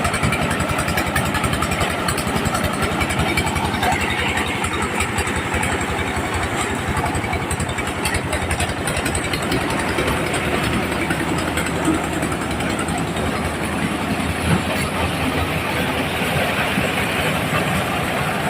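Engine-driven corn sheller for whole unhusked ears running steadily: a fast low engine pulse under a dense, even noise.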